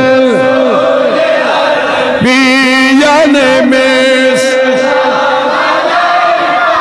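A man's voice leads an unaccompanied-style devotional Islamic chant, a Salaam in praise of the Prophet, amplified through a microphone, with a group of men chanting along. It moves in long held notes with ornamented falling bends.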